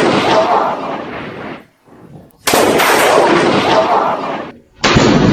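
Thunderclap from a lightning strike a few meters away: a sudden sharp crack that rumbles and fades over about two seconds, then the same crack again about two and a half seconds in, and another sudden loud crash near the end.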